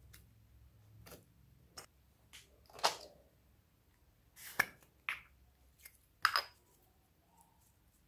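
Slime being squeezed and a plastic apple-shaped slime container being opened, making a series of sharp clicks and pops, the loudest about three, four and a half and six seconds in.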